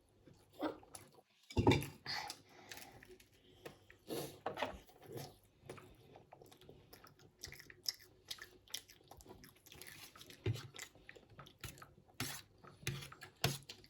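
Close-up chewing and mouth sounds of someone eating noodles, with irregular small clicks and clinks of cutlery against dishes.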